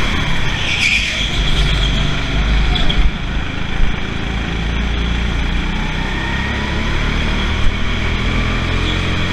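Rental go-kart running at speed, a steady low rumble with a faint whine that rises and falls as the driver speeds up and slows, and a brief high squeal about a second in.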